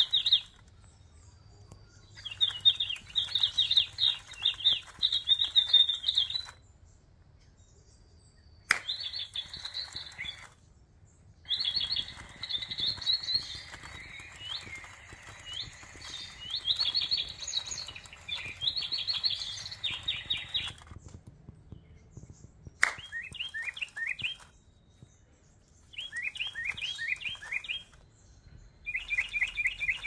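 Battery-powered toy bird's speaker playing recorded bird chirps in about six bursts of a few seconds each, every burst starting and cutting off abruptly, with a click at the start of some.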